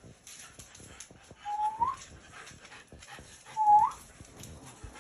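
An American bully dog whining twice, each whine about half a second long, held steady and then rising sharply at the end.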